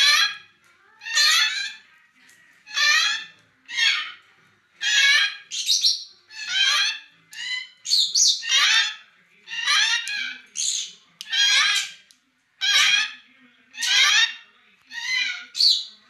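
Young grey parrots squawking over and over, about one call a second, each call about half a second long, now and then two calls overlapping.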